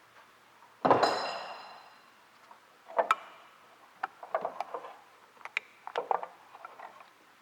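A metal part set down hard, giving a sharp clang that rings on for about a second. Then comes another knock and a run of small clicks and knocks as metal shifter parts are handled.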